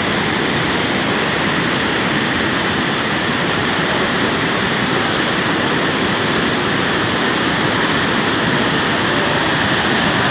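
Floodwater rushing through a dam, a loud, steady roar of water with no letup.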